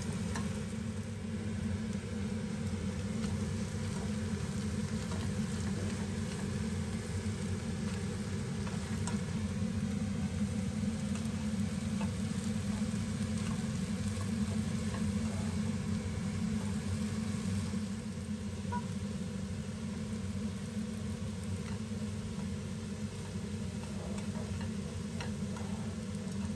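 Egg and green onions sizzling as they fry in a ceramic-coated pan, stirred with a plastic spatula, with a few light taps of the spatula. A steady low hum runs underneath.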